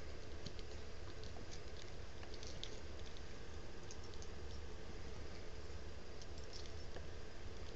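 A small dog's claws scratching and scuffing the fabric of a couch cushion as she kicks and paws with her feet: a light, irregular patter of scratches.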